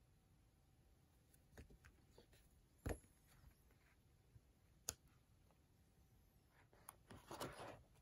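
Quiet handling of a paperback magazine: two sharp taps about two seconds apart, then a brief paper rustle near the end as it is opened to a page.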